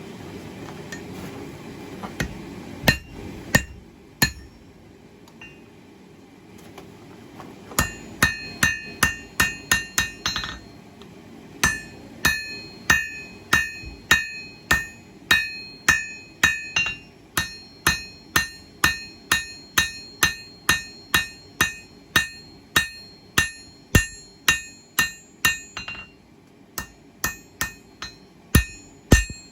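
Hand hammer striking hot 1084 carbon steel on an anvil, a long run of regular blows at roughly one to two a second, each with a short metallic ring from the anvil. A steady rushing noise, a few scattered blows and a brief pause come before the run starts.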